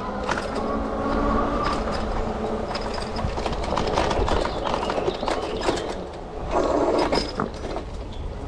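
Lectric XP fat-tyre e-bike ridden over a rough dirt trail: steady tyre rumble with frequent rattles and knocks from the bike jolting over bumps, and a louder jolt near seven seconds.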